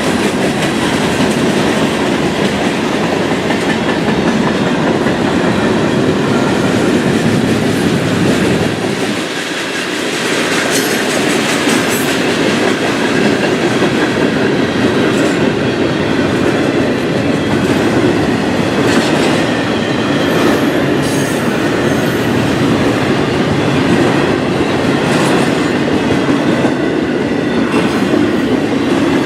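Freight train cars rolling past, with a steady rumble and wheels clicking over the rail joints. The rumble dips briefly about nine seconds in.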